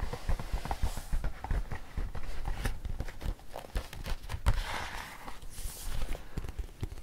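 Close-miked ASMR trigger sounds: irregular soft taps and light knocks, with a brief brushing or rustling swish a little past the middle.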